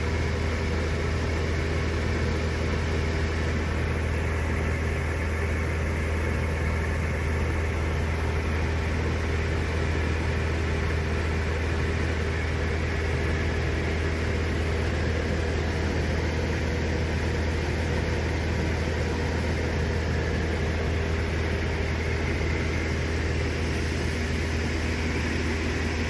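Diamond DA40 Diamond Star's engine and propeller droning steadily, heard from inside the cabin, with a deep hum and a fixed higher tone above it that stay even throughout.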